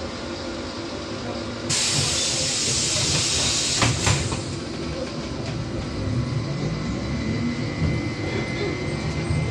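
Pneumatic passenger doors of a VMZ-5298.01 trolleybus opening: a sudden burst of air hiss about two seconds in, lasting about two seconds and ending in two clunks as the door leaves reach their stops, over the steady hum of the standing trolleybus.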